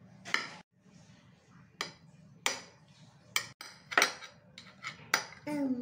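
Metal spoon clinking and scraping against a ceramic plate while tossing a chopped vegetable salad: a series of sharp, irregular clinks, several seconds of them.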